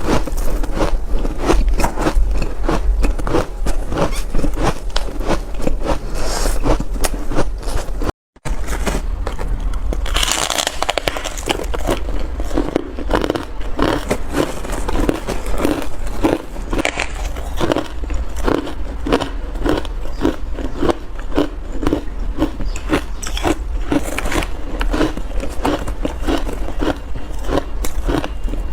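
Ice being bitten and chewed close to the microphone: dense crackling crunches, settling from about ten seconds in into steady chewing at roughly two crunches a second. There is a brief cut to silence about eight seconds in.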